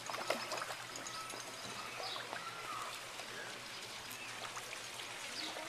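Steady trickling of running water, with a few faint short sounds over it.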